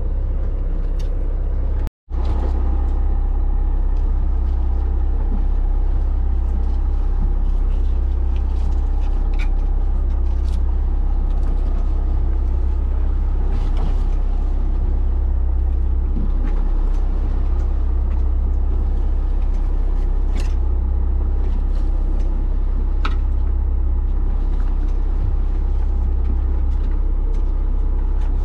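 Fishing charter boat's engine running with a steady low drone. The sound drops out for an instant about two seconds in.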